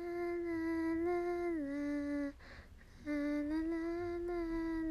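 A woman humming a slow lullaby to a baby: two long phrases of held notes with a short pause between, the first stepping down in pitch at its end.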